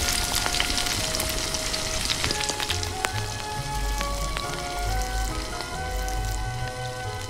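Food frying in oil in a miniature pan, sizzling and crackling, with the crackle densest in the first few seconds. Soft background music with a melody and low bass notes plays along.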